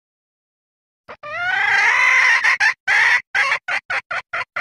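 Female junglefowl calling: after about a second of silence, one long call that rises in pitch at its start, then a quick string of short clucks. A hen's mating call, the kind used as a lure to bring in cock birds.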